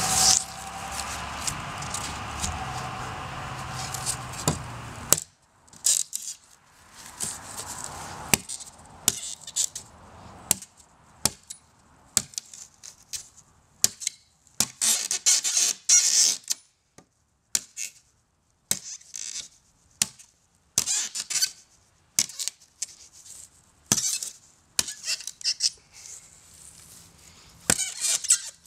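Cold Steel Bushman knife's steel blade chopping into the edge of a sheet of half-inch plywood: many sharp strikes at irregular intervals, some followed by a second or two of scraping and squeaking as the blade is worked through the wood. For about the first five seconds a steady sound with a held tone plays, then cuts off abruptly.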